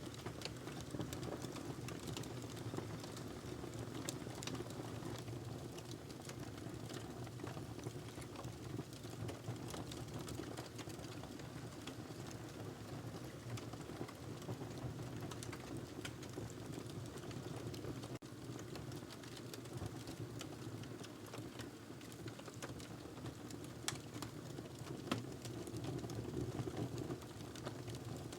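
Wood fire crackling in a fireplace: a steady low rumble of the flames with constant small, irregular snaps and pops, and two louder pops near the end.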